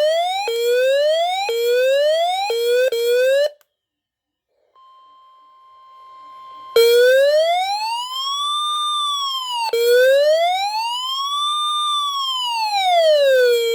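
An electronic siren. First comes a run of rising sweeps, about one a second, that stops about 3.5 seconds in. After a short gap a faint steady tone near 1 kHz, the weather radio alert tone, is heard, and then the siren returns as a slow wail rising and falling about every three seconds.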